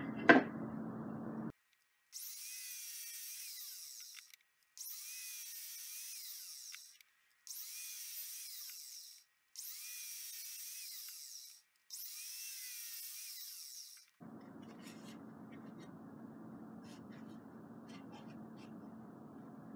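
A 12-inch miter saw cutting pine leg blanks at a 20-degree angle: five short cuts in quick succession, each about two seconds, thin and high-pitched. Near the end it gives way to a low steady hum.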